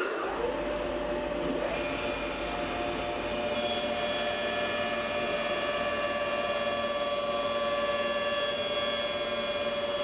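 Kity 636 jointer/planer with a Byrd Shelix helical cutterhead of segmented carbide inserts, running and jointing a hand-fed wooden board: a steady machine whine with a strong hum, growing brighter a few seconds in.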